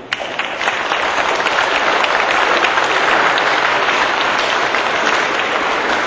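Audience applauding: many people clapping together, starting suddenly and going on steadily, in response to a guest being recognized.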